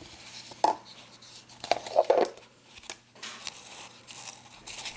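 A stiff, dried papier-mâché egg half of paper towel and glue and a plastic egg mould being handled: crinkling and rustling, with a sharp click just under a second in and a louder cluster of clicks and crackles about two seconds in.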